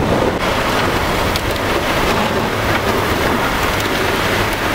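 Heavy rain with wind: a steady, loud rush, with scattered sharp ticks of drops striking close by.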